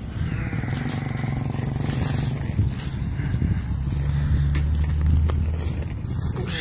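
An engine running at low revs nearby: a steady low hum that grows louder about four seconds in.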